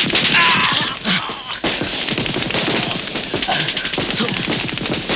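Dense, rapid gunfire: a volley of rifle and automatic-weapon shots, many a second and almost without a break, in a night firefight.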